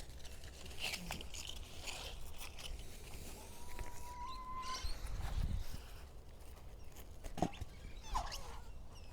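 Rustling and light knocks from guavas being picked off a small tree and put into a bucket, with a bird calling now and then.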